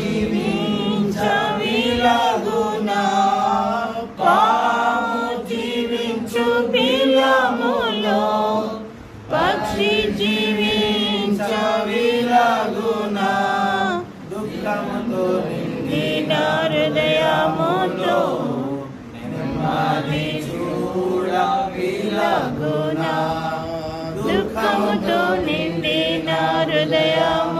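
A man's voice leading a group singing a Christian devotional song together, with long held notes and short pauses between lines.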